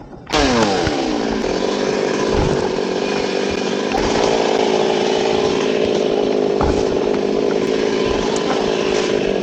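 Chainsaw cutting wood. It comes in suddenly at high revs, drops in pitch within about a second, and then runs at a steady note.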